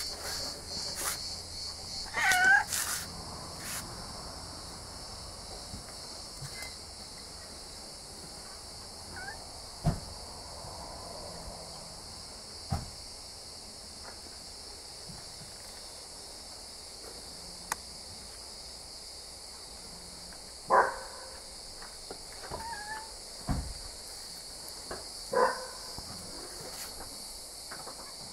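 Domestic cat meowing: one loud meow about two seconds in, then a few more meows in the second half. A few short knocks and a steady high hiss lie between them.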